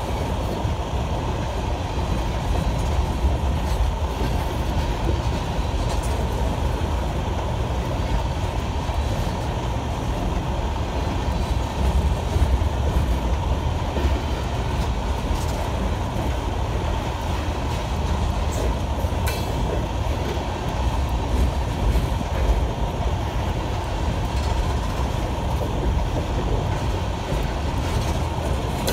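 Empty coal cars rolling past at close range: a steady rumble and clatter of steel wheels on the rails, with occasional sharp clicks.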